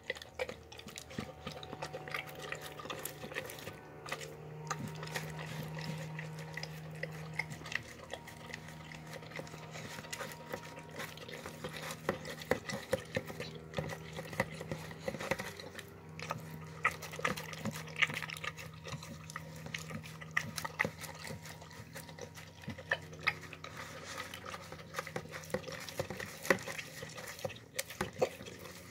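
A dog eating from a plastic tub: irregular wet licking and chewing, with tongue and teeth clicking and knocking against the plastic.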